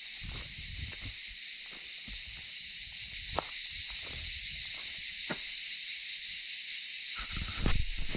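Steady, high-pitched chorus of cicadas, with a few faint knocks and rustles close by.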